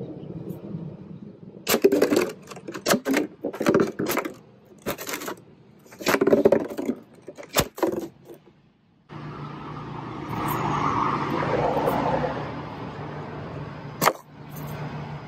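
Club hammer blows on a plastic milk jug full of liquid on concrete pavers: a dozen or so sharp hits over about six seconds as the jug bursts. Then a steady rushing noise with a low hum, and one more sharp hammer blow about fourteen seconds in.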